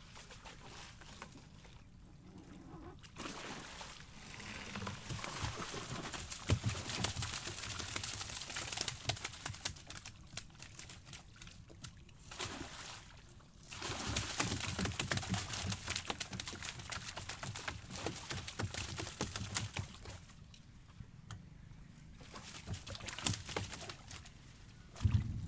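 Water splashing, pouring and dripping off a wet cast net as it is hauled hand over hand out of the river into a canoe, with fish caught in the net. The sound comes in two long stretches with a short lull between them and a quieter spell near the end.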